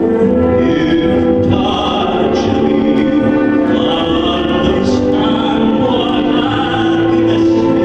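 Tenor voice singing an operatic song with instrumental backing, holding long notes.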